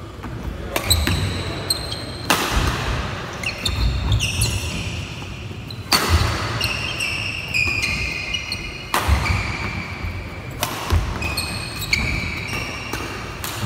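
Badminton doubles rally on an indoor wooden court: sharp racket strikes on the shuttlecock about once a second, with short high squeaks of shoes on the floor between them.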